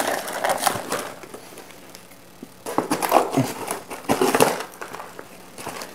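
Foil-lined plastic packaging crinkling and rustling as it is pulled apart and handled, in several bursts with a quieter gap about a second in.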